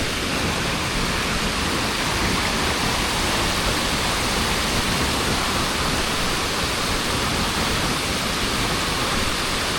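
Steady, unbroken rushing noise that holds an even level throughout.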